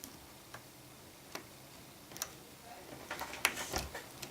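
Small, sharp clicks and taps of an iPhone 5C's parts and screen assembly being handled and pressed into place. They come singly every second or so, then bunch into a quick flurry of clicks and handling noise near the end.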